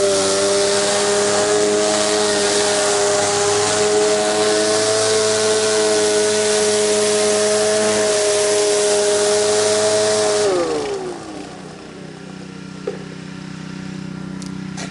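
Gas pressure washer running under load with water spraying at full pressure; about ten seconds in the spray is shut off, the whine slides down in pitch and the engine carries on running more quietly.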